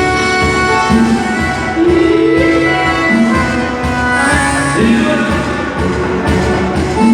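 Dance music playing, with held melody notes over a steady beat.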